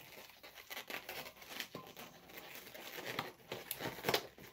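Hands working an inflated 260 latex twisting balloon, rubbing and tying its ends into a ring: irregular rubber squeaks and crinkly handling noises, with a louder snap about four seconds in.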